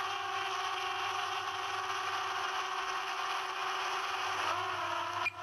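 Drone propellers whining steadily in a multi-toned hum, the pitch shifting about four and a half seconds in as the motors change speed.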